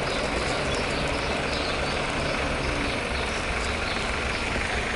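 Peugeot 408's engine running steadily at idle, a constant even hum with a few faint ticks.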